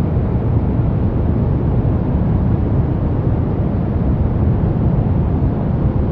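Steady brown noise: a deep, even rushing hiss with its weight in the low end, unchanging throughout.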